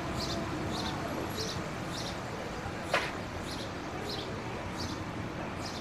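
Footsteps on a city sidewalk at a steady walking pace, about one and a half steps a second, over a constant background of street noise; one sharp click about three seconds in.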